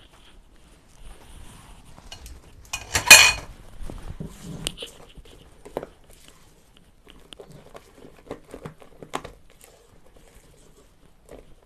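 Stainless steel mixer pot being handled and scraped out with a silicone spatula, with soft scrapes and light knocks of the pot. A single loud metal clatter about three seconds in.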